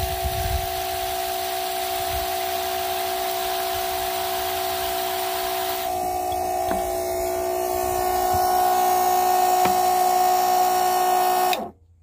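A 12-volt water pump running with a steady electric hum while water sprays from a hose spray nozzle into a metal bowl. About six seconds in the spraying stops; the pump's hum steps slightly higher and louder, then cuts off suddenly near the end.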